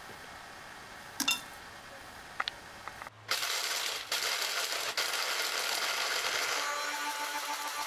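Countertop electric blender switched on about three seconds in and running steadily at speed, chopping hot peppers, the pieces rattling against the jar. A single clack about a second in comes before it starts.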